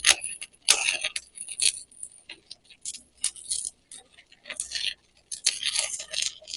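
Stick-welding arc burning a 7018 electrode, crackling in irregular bursts with short gaps, as it is dug into a V'd-out joint for a full-penetration weld.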